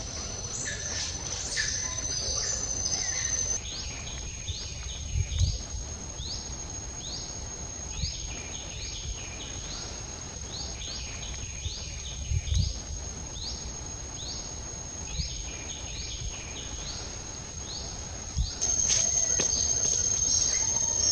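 Outdoor insect and bird ambience: a steady high insect whine with many short rising chirps, and a few low thumps. The whine shifts up in pitch a few seconds in and gets louder near the end.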